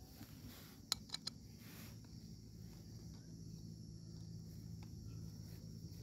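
Three sharp clicks close together about a second in as a gas canister and a glass-globe gas lantern are handled and fitted together, over a faint steady low hum.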